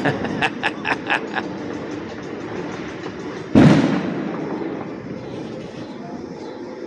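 Fireworks going off: a quick string of about six firecracker pops in the first second and a half, then one much louder bang about three and a half seconds in that dies away over the next second.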